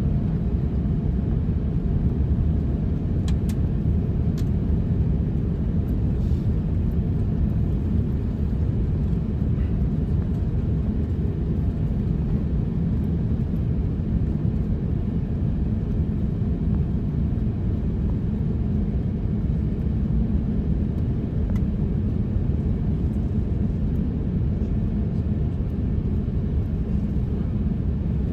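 Steady low rumble of cabin noise inside an Airbus A350-900 airliner, with a few faint clicks about three to four seconds in.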